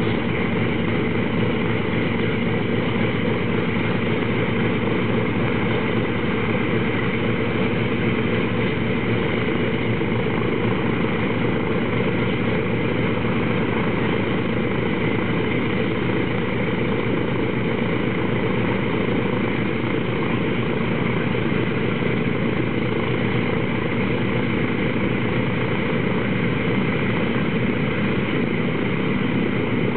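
Boeing B-29 Superfortress's Wright R-3350 radial piston engines running steadily on the ground, propellers turning, an even, unchanging engine sound.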